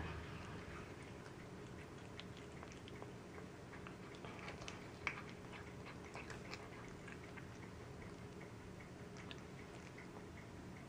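Cat eating raw chicken pieces off a tile floor: faint, irregular small clicks of chewing and licking, with one sharper click about five seconds in.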